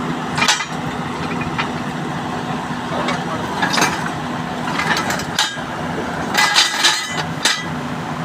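Excavator engine idling steadily, with irregular sharp knocks, about nine of them in loose groups, from work on the machine's track chain.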